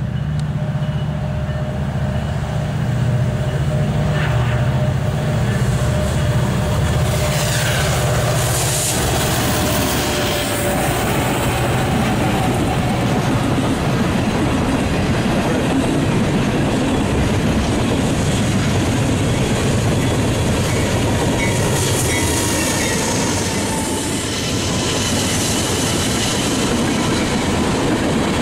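A freight train led by BNSF diesel locomotives, an SD70ACe and a GE ES44 'GEVO', passes at speed. Their engines drone for the first several seconds and fall in pitch as they go by, about eight seconds in. After that comes the steady clatter and rumble of freight car wheels on the rails, with faint wheel squeal in the second half.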